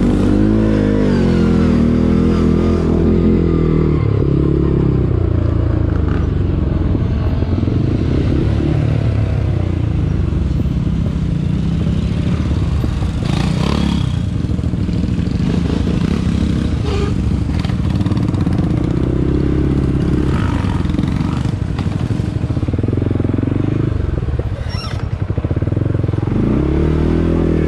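ATV engine running under way, its pitch rising and falling as the throttle is worked, with a couple of sharp knocks or rattles partway through.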